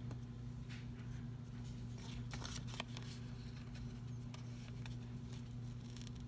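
Sticker sheet being handled and flexed: paper rustling, with a few short scratches and clicks as fingers pick at the edge of a banner sticker. A steady low hum lies under it.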